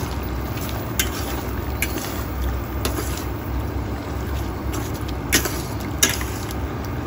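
A metal spatula stirring chicken pieces through soy sauce in a steel pot, with several sharp clinks of the spatula against the pot, over a steady low rumble.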